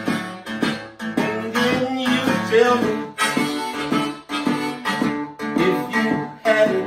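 Chicago-style blues played on a harmonica over a steady, rhythmic acoustic guitar accompaniment; the harmonica carries the melody with bent, sliding notes.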